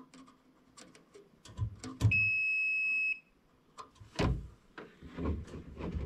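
A digital multimeter gives one steady, high-pitched beep lasting about a second, about two seconds in: its auto power-off warning as it times out and shuts itself down. Around it come light clicks and knocks of the test probes being worked against the microwave's relay board.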